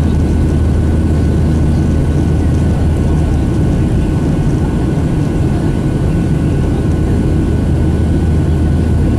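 Boeing 737-800 cabin noise heard from a window seat: the CFM56-7B turbofans and airflow make a loud, steady, heavy low rumble with a faint steady whine above it.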